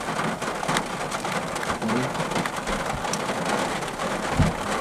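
Rain pattering on a vehicle's windscreen and roof, heard from inside the vehicle, with a low thump near the end.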